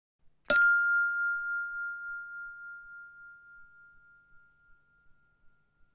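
A single bell-like ding, struck once about half a second in, ringing on one clear tone that fades away over about four seconds.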